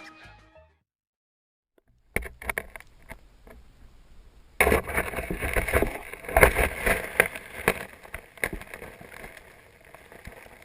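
Water sound with many sharp clicks and crackles, starting about two seconds in and growing much louder a little before halfway through.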